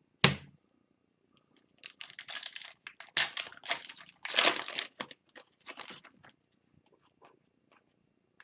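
A sharp knock just after the start, then a foil-wrapped Upper Deck hockey card pack being torn open and its wrapper crinkled for about four seconds, with a few faint card ticks near the end.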